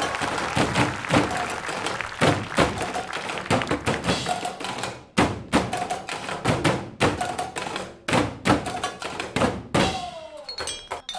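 Percussion ensemble beating metal cooking pots and pans mounted on stands: a fast, uneven run of sharp metallic thunks and taps, some pots ringing briefly, thinning to a few strokes near the end.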